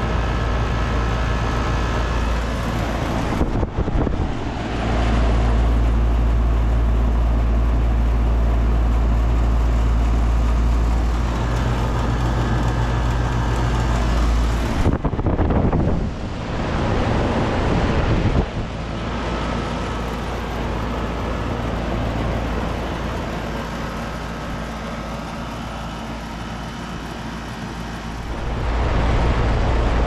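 2005 Tempstar Performance 12 SEER heat pump outdoor unit running in cool mode: a steady compressor hum under the rush of the condenser fan.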